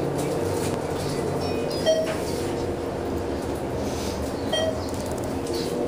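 ThyssenKrupp hydraulic elevator car travelling, a steady rumble and hum of the car and its drive. Two short tones come about 2.7 seconds apart.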